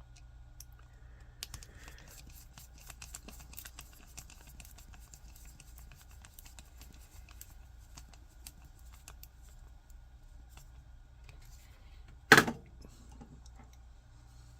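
Small 3D-printed plastic parts being handled and fitted together: a run of faint light clicks and ticks, then one loud sharp click about twelve seconds in.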